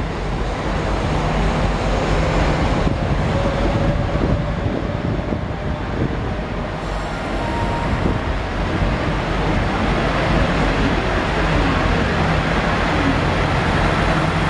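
KiHa 40/47-series diesel railcars pulling away from a platform. Their diesel engines run under power with a steady rumble, and the wheels roll on the rails as the cars move past.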